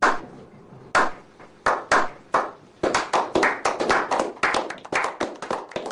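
Hand clapping: a few separate claps at first, then from about three seconds in the claps come faster and overlap into a short round of applause.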